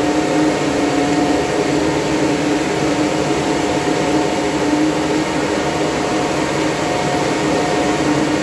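Cooling fans of running Antminer crypto-mining machines: a loud, steady whir with a couple of steady humming tones in it.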